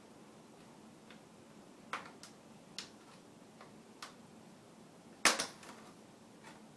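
Plastic screen bezel of a Dell Inspiron 3520 laptop being pried off by fingernails, its snap clips releasing: a few sharp clicks about a second apart, the loudest a double click near the end.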